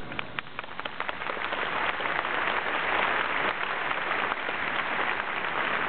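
Large crowd applauding: scattered claps that build within the first second or two into steady applause.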